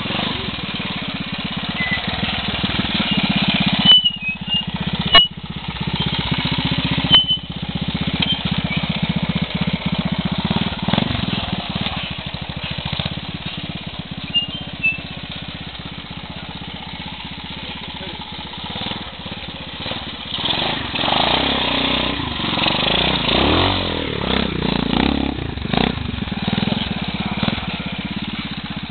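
Trials motorcycle engine running at low revs as the bike is ridden slowly over rough forest ground, getting louder and more uneven with bursts of throttle from about twenty seconds in. A few sharp knocks come in the first several seconds.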